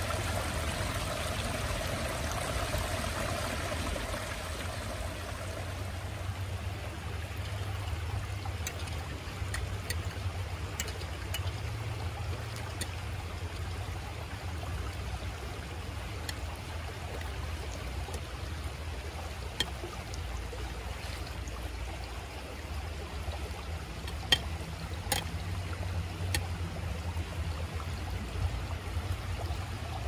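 Shallow creek flowing over rocks: a steady rushing, somewhat louder in the first few seconds. A few light clinks of metal utensils against glass dishes come in over it, mostly in the second half.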